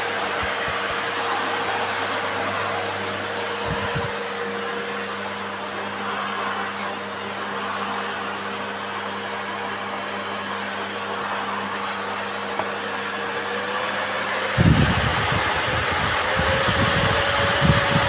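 Bosch Serie 4 (BGLS4X300) bagged vacuum cleaner running: a steady motor whine over rushing suction air. The motor pitch steps up slightly twice near the end, and a low rumble joins for the last few seconds.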